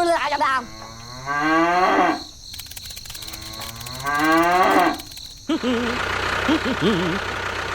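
Cow mooing twice, two long calls each rising in pitch. About two-thirds of the way through, a steady mechanical running noise takes over.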